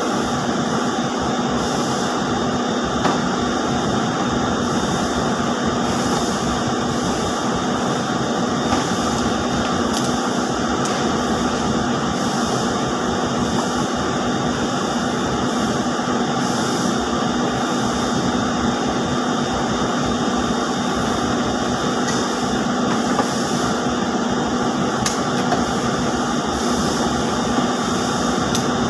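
Steady, loud drone of spinning-mill machinery, with a constant hum and a faint hiss of fans and spindles running, and an occasional light tick.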